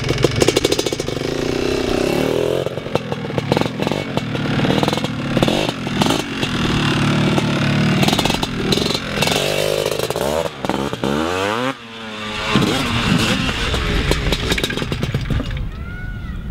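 Three-wheeled ATV engine revving up and dropping back over and over as it is ridden hard, with rattling and clattering. About eleven seconds in the revs fall steeply and the engine briefly drops away, then picks up again and runs quieter toward the end.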